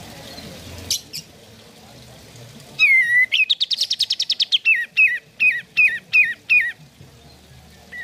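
Olive-winged bulbul (kapas tembak) singing. Two sharp chips come first, then a falling whistle that runs into a fast rattling trill of about a dozen notes a second. It ends with seven repeated down-slurred whistled notes.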